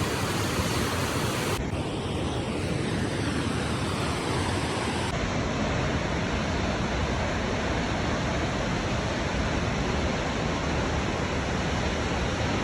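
Waterfall running: a steady, loud rush of falling water.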